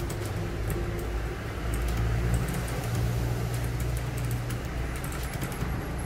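Typing on a Royal Kludge RK100 mechanical keyboard: scattered quick key clicks over a loud low droning rumble, like an engine running.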